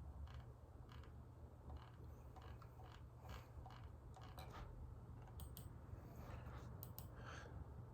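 Near silence with a steady low hum and faint scattered clicks, several close together in the second half.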